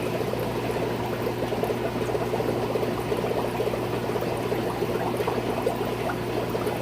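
Aquarium water trickling and bubbling steadily, with a steady low hum underneath.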